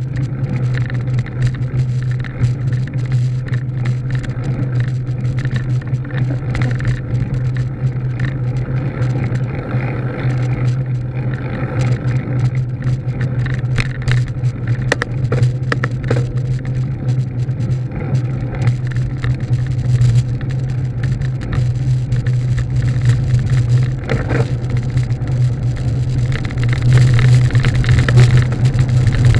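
A motor vehicle driving at a steady speed: a steady engine drone under road and wind noise, with scattered clicks and rattles over the rough, patched pavement. It gets somewhat louder near the end.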